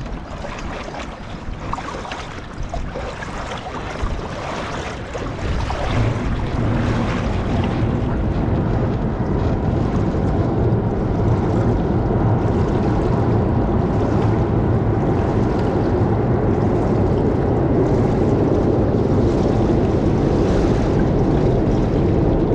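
Wind buffeting the microphone over water noise on a boat; about six seconds in, a steady motor drone comes up and holds, a motorboat engine running at constant speed.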